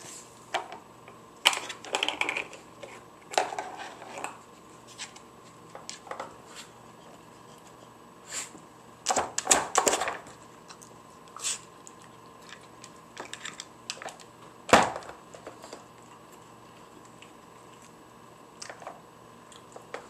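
A dog nosing and pawing at a hard plastic dog puzzle toy, sliding its drawers and knocking its bone-shaped pegs: irregular plastic clacks and rattles, in a few clusters, with the loudest single knock about three-quarters of the way through.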